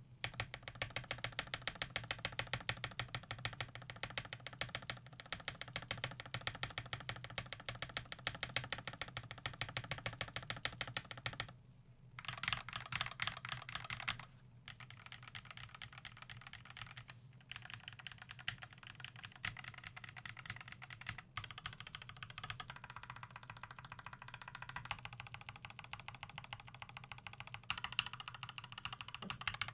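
Fast typing on a custom Gamakay LK67 mechanical keyboard with Gateron Cap Yellow V2 linear switches lubed with Krytox 205g0 and PBT keycaps: a dense, rapid stream of keystrokes broken by a few short pauses.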